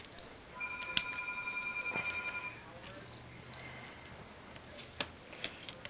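A phone ringing: one electronic ring of about two seconds, a trilling tone that starts about half a second in, with a few sharp clicks around it.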